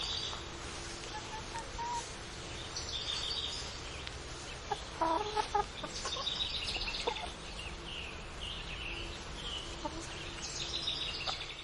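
A flock of chickens clucking and calling, with many short high-pitched calls throughout and a few louder clucks about five seconds in.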